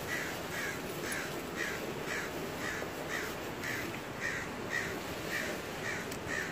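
A bird calling over and over, a short call about twice a second at an even pace, with wind noise on the microphone underneath.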